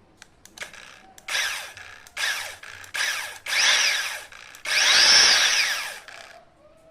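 FUYAON chainsaw engine revved in five throttle bursts, its pitch rising and falling with each, the last burst the longest and loudest. A few light clicks come first.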